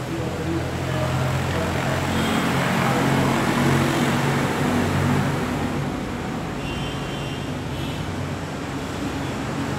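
Motor vehicle engine running amid road traffic noise, growing louder toward the middle and fading again after about six seconds, as a vehicle passing by.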